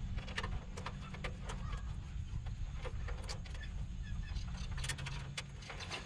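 Scattered light clicks and rustles of wiring and sheet metal being handled inside a heat pump's outdoor unit, over a steady low rumble.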